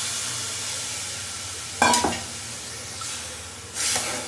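Water poured into a hot simmering potato curry in a pan, making a steady hiss that slowly fades. A metal spoon clanks against the pan about two seconds in, and knocks and scrapes again near the end as the curry is stirred.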